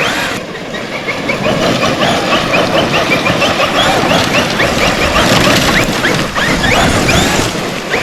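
Traxxas XRT RC monster truck's electric motor whining in many short bursts that rise in pitch with each throttle push, over a steady rush of tyre and ground noise.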